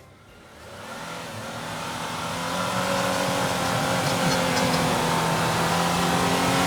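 Off-road 4x4 engine running at steady revs under load, growing louder over the first two to three seconds and then holding an even note.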